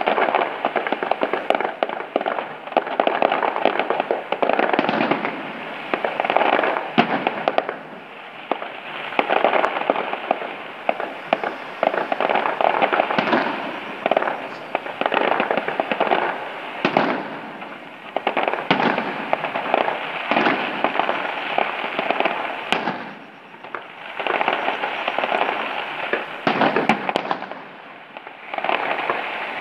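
Aerial fireworks shells bursting in a rapid, continuous string of bangs and crackling, easing briefly a few times.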